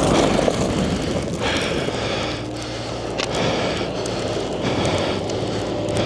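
Blizzard wind buffeting the microphone in a steady rumble, with short crunching sounds about once a second.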